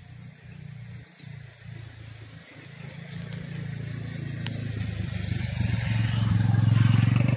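A motor vehicle's engine approaching, growing steadily louder over the last few seconds.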